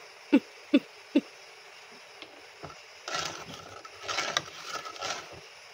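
Steel spatula scraping and stirring a mixture around an aluminium kadhai, in rasping strokes from about three seconds in. Three short, loud knocks come in the first second or so.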